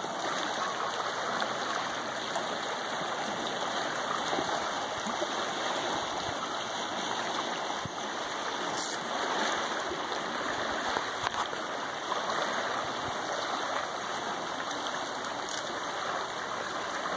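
Small waves from a wind-chopped lake lapping and splashing steadily against rocks along the shoreline, a continuous wash of water.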